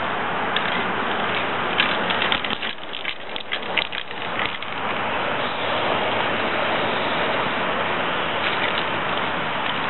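Aerosol spray paint can hissing steadily as paint is sprayed onto a wall. About two and a half seconds in the hiss drops away for a couple of seconds, with several sharp clicks, then resumes.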